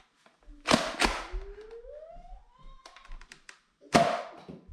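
Two sharp thunks from Nerf foam-dart blasters firing, one shortly after the start and one about three seconds later, with a rising tone between them.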